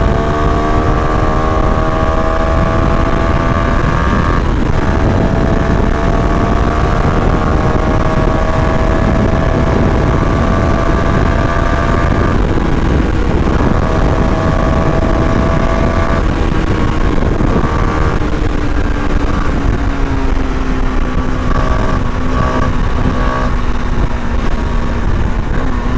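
CFMoto NK250's single-cylinder engine pulling on the road, its note rising slowly and dropping back a few times as at upshifts, then settling lower and steadier near the end, over steady wind rush. It has a buzzy, annoying note that the rider likens to a crude farm pump engine.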